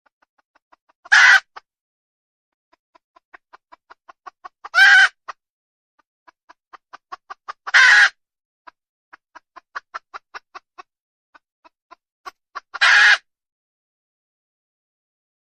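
A desi hen clucking: runs of short quick clucks that grow louder and each end in a loud drawn-out squawk, four times.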